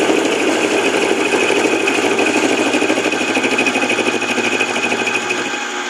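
7x10 mini lathe running with a milling cutter cutting into the work, a fast even chatter over a steady high whine.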